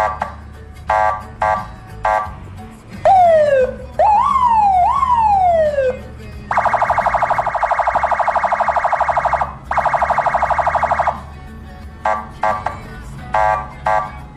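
Electronic police-style siren fitted to a car, switching between modes: short buzzing blasts, then several falling wail sweeps, a long pulsing buzz for several seconds, and short blasts again near the end. A low steady hum runs underneath.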